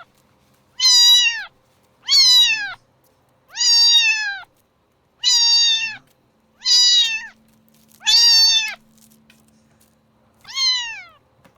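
Domestic cat meowing over and over: seven loud, high meows about a second apart, each dropping in pitch at the end, with a longer pause before the last.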